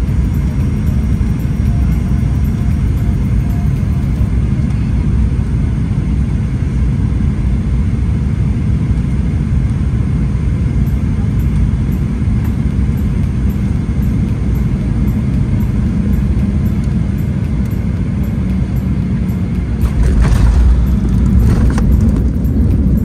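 Cabin noise of a twin-engine turbofan airliner on final approach: a steady low rumble of engines and airflow. About 20 seconds in, the main wheels touch down and the rumble grows louder, with some rattling, as the jet rolls out on the runway.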